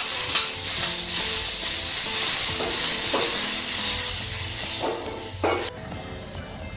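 Chopped onion sizzling in hot oil in a steel kadhai, with a few scraping strokes of a metal slotted spatula stirring it. The sizzle drops sharply about two thirds of the way through.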